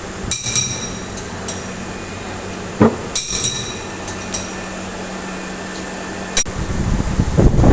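Light metallic clinks, several in a row, each ringing briefly with a high tone, then a single sharp click. A rough, rumbling noise starts near the end.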